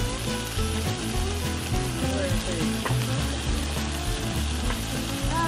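Sliced beef and bacon rolls sizzling steadily on a hot round tabletop grill plate.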